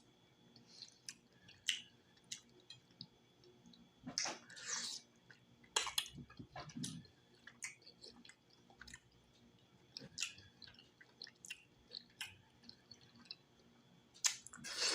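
Close-miked wet chewing and smacking on cooked cow foot, gnawing the soft, gelatinous meat off the bone, with scattered sharp clicks and slurps, louder bouts about four seconds in, around six seconds and near the end.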